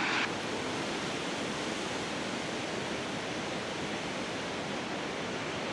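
Steady, even hiss of distant ocean surf washing on the shore.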